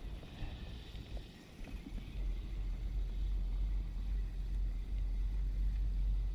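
Wind buffeting the microphone outdoors: an uneven low rumble that swells and dips, with faint hiss above it.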